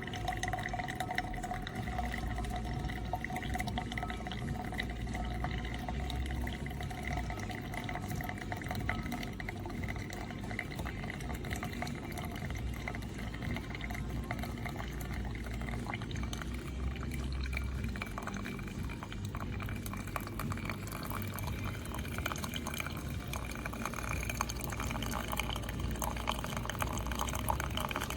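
Single-serve pod coffee maker brewing: a steady stream of liquid pouring and dripping into a cup, with a low hum that comes and goes underneath.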